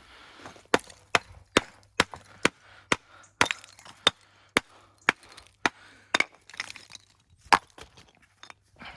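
Hammer striking stone over and over, about two sharp blows a second, a dozen or so in all, with a short pause before a last loud blow.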